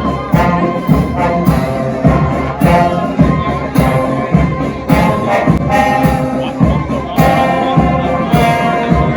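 Brass band playing a tune, with sustained trumpet and horn notes over drums keeping a steady beat of about two a second.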